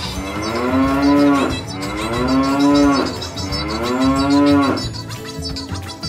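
A cow mooing three times: long, evenly spaced moos of about a second and a half each, every one dropping in pitch at its end.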